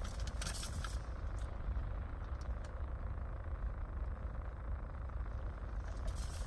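Steady low rumble of a car heard from inside its cabin, with a few faint clicks and rustles in the first couple of seconds.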